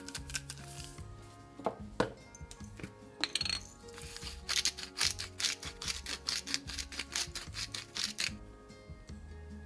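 Kitchen utensil work over background music: a couple of sharp knocks, then a quick run of light clicks and taps at about four a second that stops near the end.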